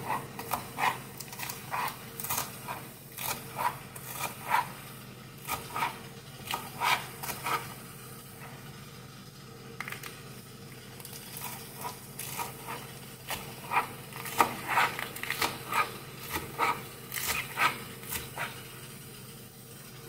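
Chef's knife chopping lettuce on a plastic cutting board: a run of quick, crisp knocks, about two or three a second, easing off for a few seconds in the middle before picking up again.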